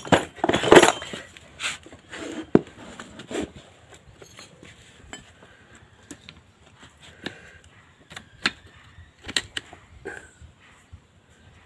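Metal parts of a motorcycle front shock absorber clinking and knocking as they are handled and fitted back together. A dense clatter comes in the first second, then scattered single clinks, with a couple of louder knocks near the end.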